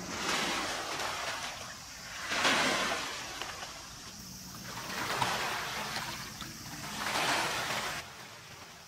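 Small waves washing onto a rocky, pebbly shore, rising and falling four times about every two and a half seconds, then stopping abruptly near the end.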